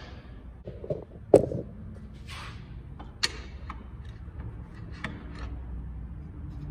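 A few sharp knocks and clicks from tools and parts being handled against a wooden door, with two louder knocks and a brief scrape between them.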